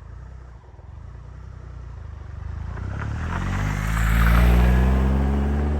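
An engine running up: a low rumble that climbs in pitch and grows louder over the first few seconds, peaks about two-thirds of the way in, and then holds steady.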